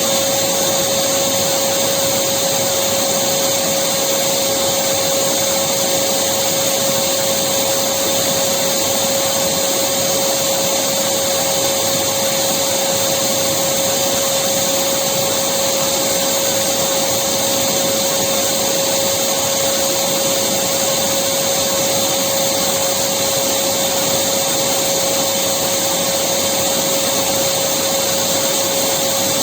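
Electric vacuum cleaner running continuously: a steady rushing hiss with a constant motor whine, unchanging throughout.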